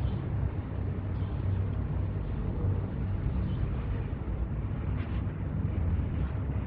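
Steady low hum and rumble, with a faint click about five seconds in as the brake pads and caliper bracket are handled.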